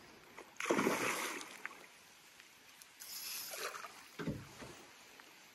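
Hooked peacock bass thrashing and splashing at the surface beside the boat during the fight: three short splashes, about half a second in, around three seconds in, and just after four seconds.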